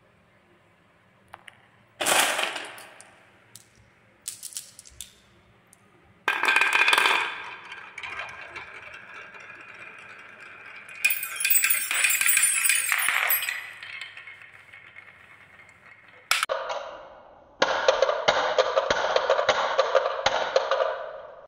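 Balls rolling and clattering along a wooden marble-run track carved with wavy grooves, knocking against the wood and each other. There are single knocks early on, a long stretch of rolling with ringing and clatter in the middle, and a dense, rapid rattle of many balls near the end.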